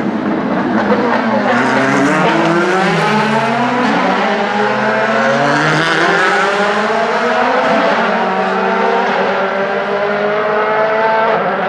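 Several DTM race cars' 4-litre V8 engines running at once, revving up and down so that their pitches rise, fall and cross over one another. Near the end one engine note holds and climbs slowly.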